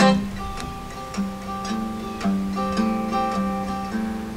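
Instrumental stretch of a song played on the Lenoxx Sound BP-103 boombox's CD player: plucked acoustic guitar notes over a repeating low note, opening with a sharp strum.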